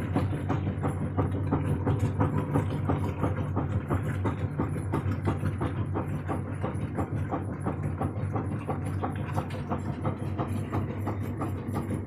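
Washing machine running: a steady low motor hum with a quick, uneven clatter of knocks and clicks.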